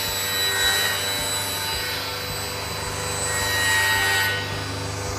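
A 10-inch, 3 HP induction-motor table saw (WTS250LT) ripping a board along the fence: steady motor hum under the blade's cutting noise, which swells about three to four seconds in.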